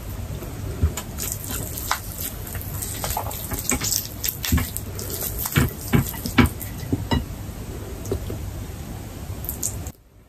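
Close-up eating sounds: wet clicks and crackles of crispy roast chicken being pulled apart by hand and chewed, over a low hum, cutting off abruptly near the end.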